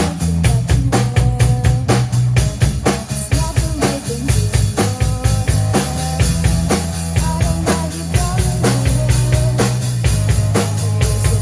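Band music with a drum kit keeping a busy, steady beat over a heavy bass line and pitched instrument notes.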